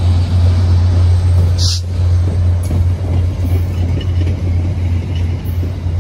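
VIA Rail passenger coaches rolling past at speed: a steady low rumble of steel wheels on the rails, with a brief high hiss about two seconds in.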